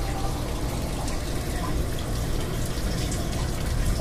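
Steady wind blowing across the microphone with light rain falling, as a thunderstorm dies down.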